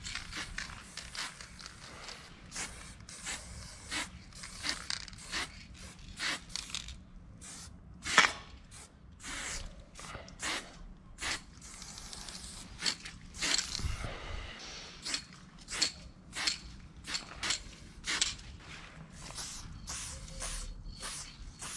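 Aerosol spray paint cans hissing in many short bursts with a few longer sprays, as letters are filled in and outlined on a concrete wall. A dull low bump comes about two-thirds of the way through.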